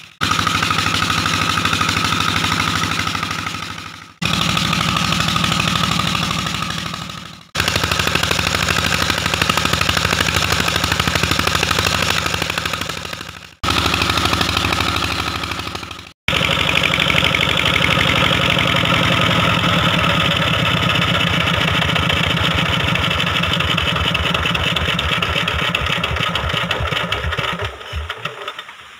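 Petter 23 hp diesel engine running steadily while belt-driving a water pump, the sound broken by several abrupt cuts. Near the end the firing beats slow and die away as the engine is shut down.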